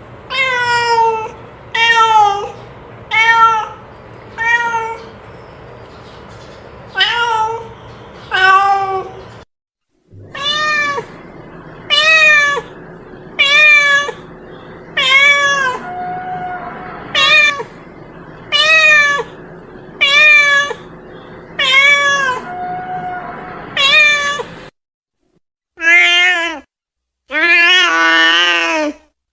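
A domestic cat meowing over and over, short calls about one every second or so, each rising then falling in pitch. The last two calls are longer and more drawn out. The sound cuts out briefly twice.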